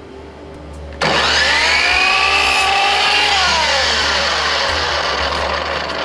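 Electric miter saw switched on about a second in, its motor whining quickly up to full speed and holding, then dropping in pitch as it winds down, while pallet wood is cut.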